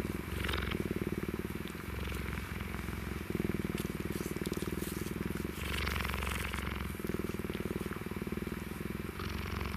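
Cheetah purring steadily close up, a low rumble that shifts with each breath every second or two, while its face is stroked by a hand. A short hiss comes about six seconds in.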